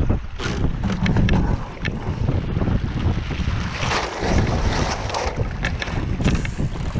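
Wind buffeting the microphone over water splashing along a Finn dinghy's hull, with scattered small knocks and slaps. A louder hiss of water comes about four seconds in, as the boat turns and the boom swings across.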